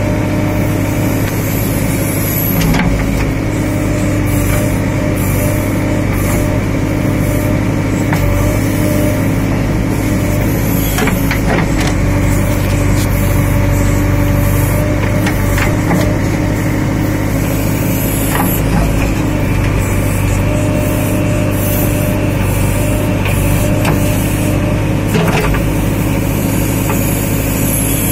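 JCB backhoe loader's diesel engine running steadily while the backhoe digs, heard from the operator's seat in the cab, with a few scattered knocks from the working arm and bucket.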